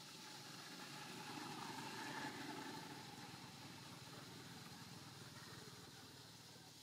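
Faint engine of a passing motor vehicle, rising to a peak about two seconds in and then fading away.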